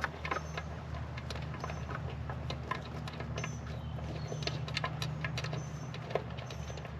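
Light, irregular metallic clicks and ticks of an 8 mm bolt being threaded in and turned with a socket to fasten an idle air control valve, over a steady low hum.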